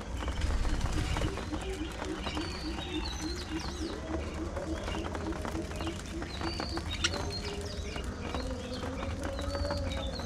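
A flock of budgies chirping and warbling in short, high calls throughout. From about one to five seconds in, a low call pulses about three times a second, and a longer low call comes near the end, all over a steady low hum.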